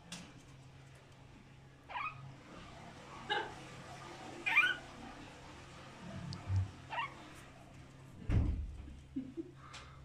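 Caged myna giving short, sharp calls about a second apart, some rising in pitch. A low thump about eight seconds in, followed by a few soft low sounds.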